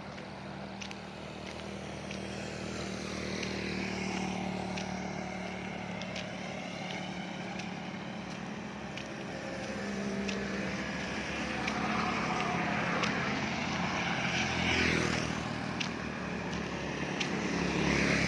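Road traffic on a highway: motor vehicles passing by over a steady low engine hum. Two louder passes come through, one a little past the middle and one near the end.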